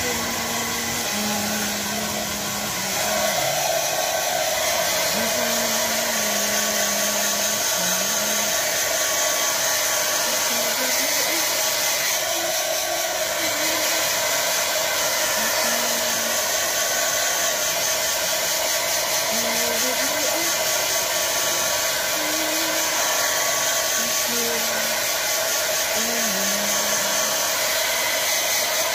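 Handheld hair dryer blowing steadily on a dog's coat, growing louder about three seconds in as it is brought closer.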